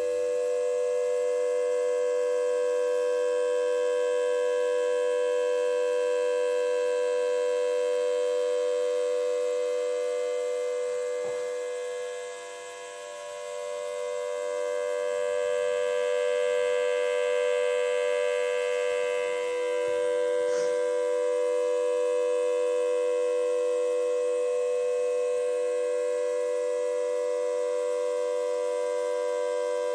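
Homemade model of a Federal Signal Thunderbolt 1003 siren sounding a steady, unchanging tone on full alert. The level dips briefly about twelve seconds in.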